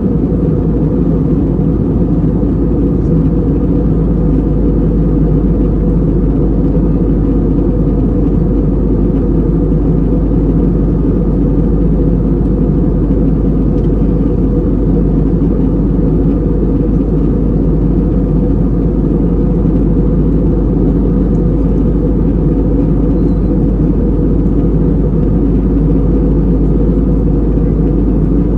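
Cabin noise of an Airbus A320 airliner in flight: a steady, unbroken low drone of the engines and air rushing past the fuselage.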